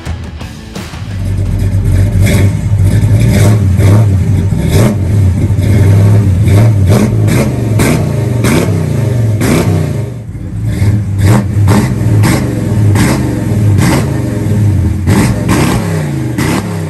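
Classic Chevrolet Caprice's engine revved over and over in quick blips through a custom performance exhaust: a deep rumble whose pitch rises and falls with each blip, easing off briefly about ten seconds in.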